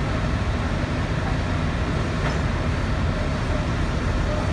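Diesel lorry engines running steadily, driving the hydraulics of hiab lorry-loader cranes during a tandem lift.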